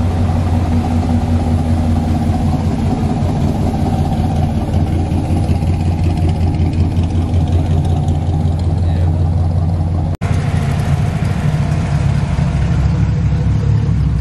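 A car engine running steadily at idle, loud and deep. About ten seconds in there is an abrupt break, after which a second engine runs with a somewhat higher note.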